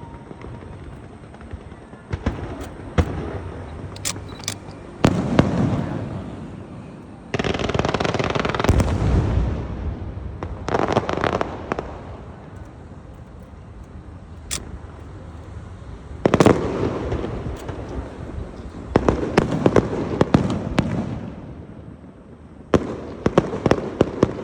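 Fireworks going off: sharp single bangs, and about half a dozen clusters of rapid crackling bursts lasting a second or two each.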